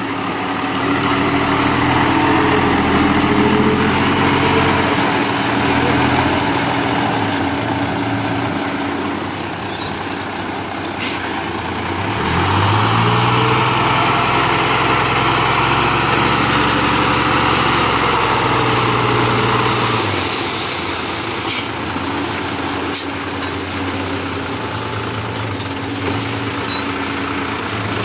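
Heavy diesel engine of construction machinery running. It revs up about twelve seconds in, holds the higher speed for several seconds, then falls back toward idle.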